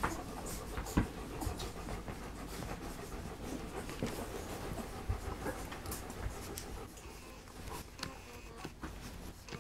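Three-week-old puppies nursing from their mother dog: irregular small wet smacks and clicks of suckling, with breathy dog panting.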